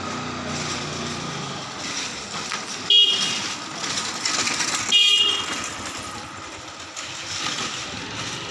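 Street traffic noise with two short, loud vehicle horn toots about two seconds apart; an engine hums low in the first second.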